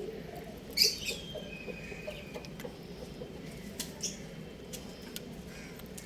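Young rooster chirping: a sharp high chirp about a second in, running into a thin drawn-out note that falls slowly in pitch, then a shorter chirp near the middle, with a few scattered clicks.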